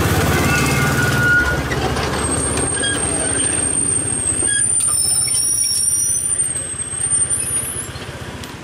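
Small narrow-gauge tourist trolley train rolling past and braking into the station: a low rumble of the cars on the rails, then from about two seconds in a thin, high steady squeal as it slows, which stops near the end as the train comes to rest.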